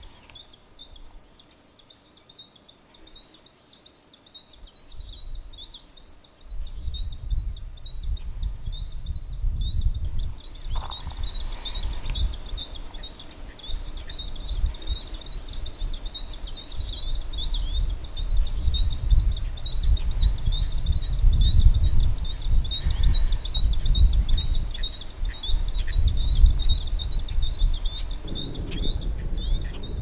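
Juvenile swallow-tailed kites begging, a constant rapid series of high, thin chirping calls. A gusty low rumble joins a few seconds in.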